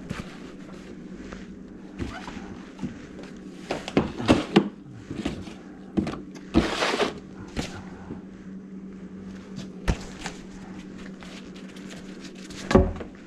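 Knocks and clunks of drain-cleaning tools and a bucket of greasy drain water being handled on a hard floor, over a steady low hum. There is a brief rushing noise about two-thirds of the way through and a loud thump near the end.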